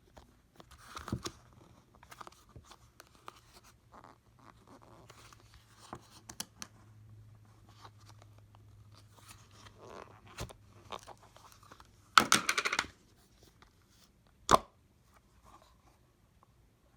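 Hands handling a collapsible silicone camp cup and its packaging: scattered rustles and small clicks, a short loud tearing sound about twelve seconds in, and a sharp snap about two seconds later.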